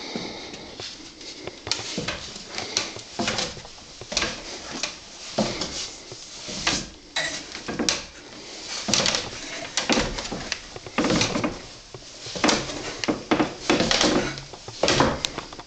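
Footsteps and a dog's paws going down a bare wooden spiral staircase: a string of irregular knocks and thuds on the wooden treads.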